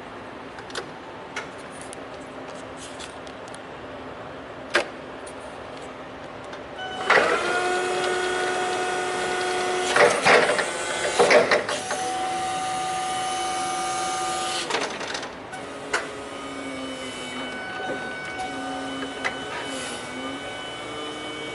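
Forklift running: a steady motor whine starts about seven seconds in and lasts about eight seconds, with a few clunks partway through. A fainter wavering hum follows.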